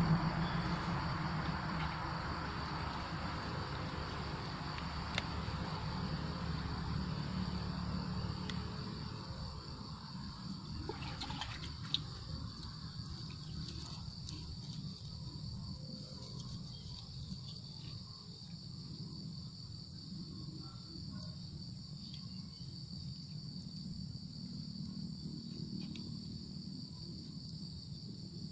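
Steady high chirring of night insects, such as crickets, runs throughout. A soft hiss fades away over the first ten seconds, with a few isolated clicks from the leaves being handled at the pot over the campfire.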